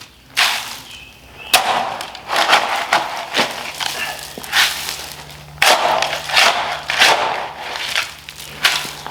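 A digging tool striking rocky soil over and over in uneven blows, chopping through a big rock in the trench. A faint low hum comes in about four seconds in.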